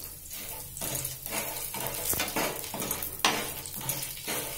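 Metal spoon stirring dry popcorn kernels in hot oil in a non-stick frying pan: repeated scraping strokes against the pan over a light sizzle, with one stronger scrape a little after three seconds in.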